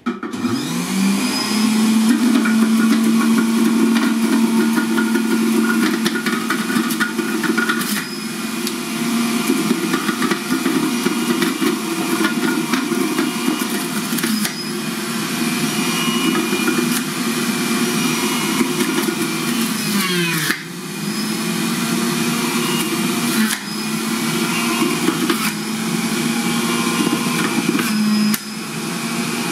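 Electric centrifugal juicer switched on and spinning up, then running with a steady motor whine and grinding as chopped pieces are pushed down the feed chute. Its pitch sags and recovers once about two-thirds of the way through.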